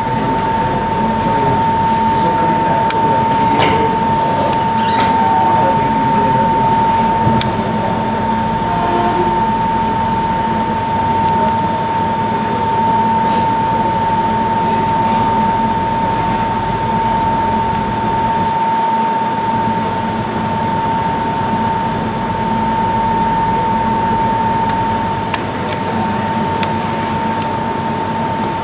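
Steady room noise of a computer lab full of running desktop computers: an even hum with a constant mid-pitched whine held throughout, and a few faint scattered clicks.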